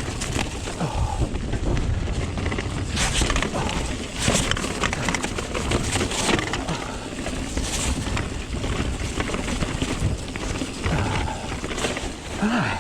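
Strong gusty wind buffeting the camera microphone, with the rattle and knocks of a mountain bike running over rough trail.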